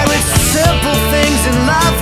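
Rock music soundtrack with a steady drum beat, bass and a melody line.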